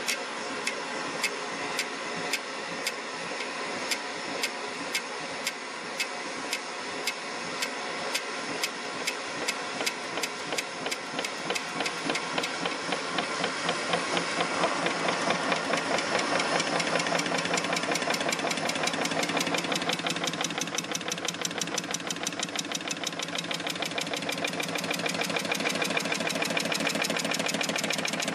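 Large home-built Stirling hot-air engine running, its linkage knocking sharply in a regular beat over a steady mechanical clatter. The knocks quicken from under two a second to a fast rattle as the engine gathers speed.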